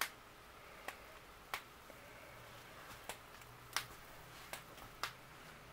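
Faint, sharp clicks, about seven of them at uneven intervals roughly a second apart, over quiet room tone.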